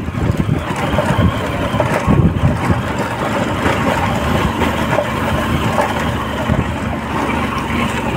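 Hero Honda CBZ motorcycle engine running steadily, with a few louder surges in the first couple of seconds.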